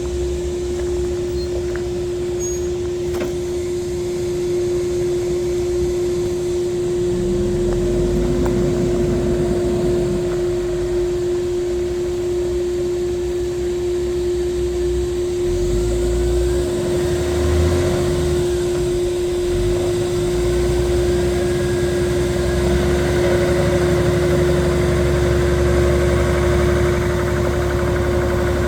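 Diesel engine of a 2009 Peterbilt 389 tractor truck running steadily, a low rumble with a steady whining tone over it throughout.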